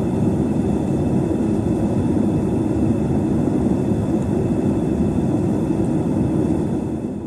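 Gas burner of a small metal-melting furnace running steadily, a dense rushing noise strongest in the low range.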